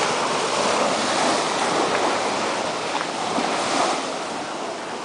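Ocean surf breaking and washing up a sandy beach: a steady rush of waves that swells and eases.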